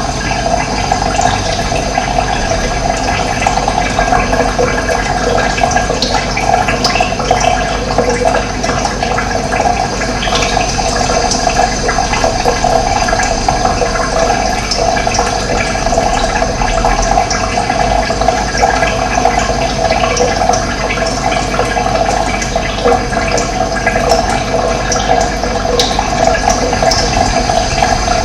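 Running water flowing steadily: a continuous, even rush of splashing water.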